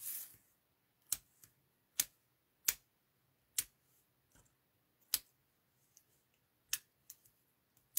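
Sharp small clicks and taps from hands working papercraft supplies while sticking small foam adhesive dimensionals onto a card, about eight at uneven spacing, roughly one a second, with a brief hiss at the very start.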